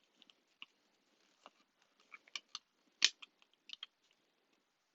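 Scattered light clicks and crinkles of a product package being handled and opened, the loudest click about three seconds in.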